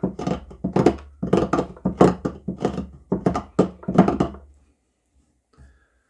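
The 90-degree spine of a Victorinox Venture Pro knife scraping wood in quick repeated strokes, about three to four a second. The scraping stops after about four and a half seconds, and one faint click comes near the end.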